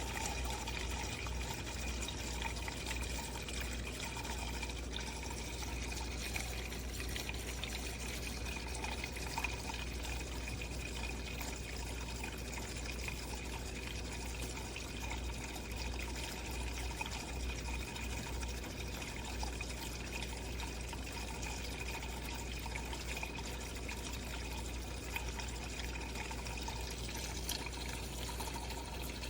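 Automatic drip filter coffee maker brewing: a steady trickle of hot water running through, over a constant low hum.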